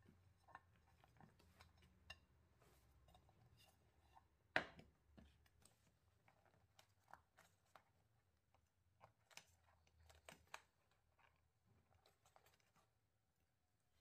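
Quiet kitchen handling sounds: scattered light clicks and taps over a faint low hum, with one sharper knock about four and a half seconds in.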